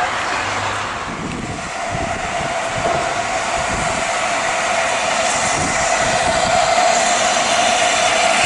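Steam train running on the line, a steady rumble with an even whining tone that swells louder from about five seconds in.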